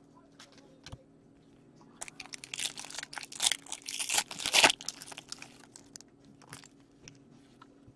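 Foil trading card pack being torn open and crumpled by hand: a cluster of crackling, crinkling rustles about two to five seconds in, after a few light clicks of cards being handled.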